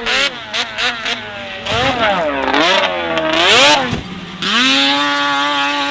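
Snowmobile engine revving, its pitch rising and falling as the sled rides past, then holding a steady high pitch for the last second and a half.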